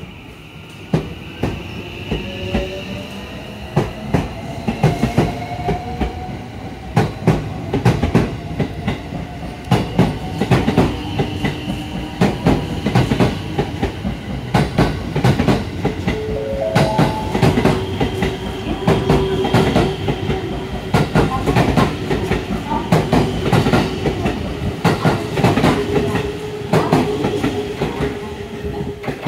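JR 223-series electric multiple unit pulling out and running past close by: a long run of wheel clicks over the rail joints and points. Under the clicks is the traction motors' whine, slowly rising in pitch and stepping up about halfway through as the train gathers speed.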